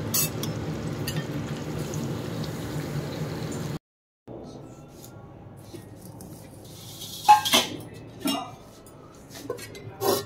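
Fish pieces sizzling in hot oil in a kadai. After a cut, a few sharp clinks of utensils against steel dishes.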